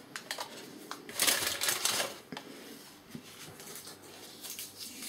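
Small plastic toy bricks and scraps of paper being handled and sorted by hand: light clicks and taps, with a rustling burst about a second in.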